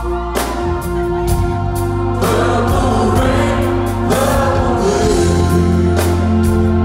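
A live band plays in a concert hall, heard from the audience: drum hits over held keyboard chords, with a sung vocal line coming in about two seconds in.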